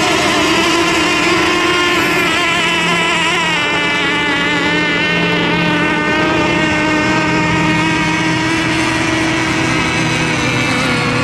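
Radio-controlled racing boats running on the water: a steady, high motor whine whose pitch wavers as they race and turn.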